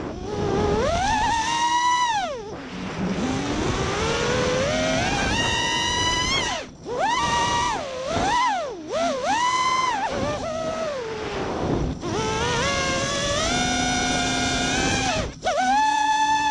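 Brushless motors of a 5-inch FPV quadcopter (Emax RS2205 2300kv with 3D props) whining, the pitch swooping sharply up and down with the throttle. Three times the sound dips briefly where the throttle drops away.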